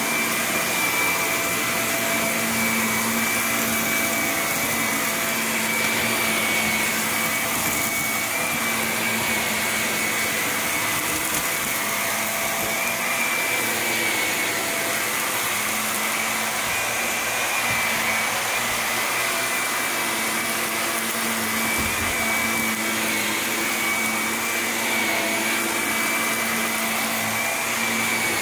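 Shark upright vacuum cleaner running over carpet: a steady rushing hiss of suction with a high-pitched motor whine that wavers slightly in pitch.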